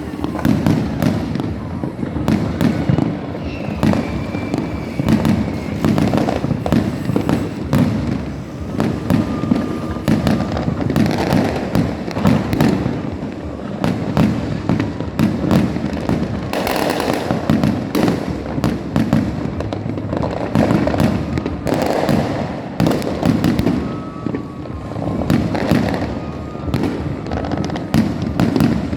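Fireworks and firecrackers going off in a dense, unbroken barrage of many overlapping bangs and crackles.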